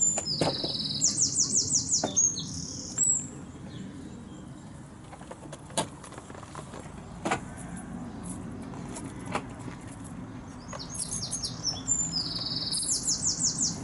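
A songbird sings quick runs of repeated high notes, once at the start and again near the end, over a steady low rumble of distant traffic. In between come a few sharp clicks and knocks as the caravan door is shut and locked with a key.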